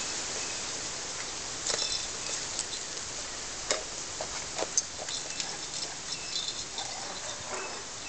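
Miniature pinscher puppies moving about on a tiled pen floor: scattered light clicks, taps and rustling over a steady outdoor hiss, with a few sharper clicks near the middle.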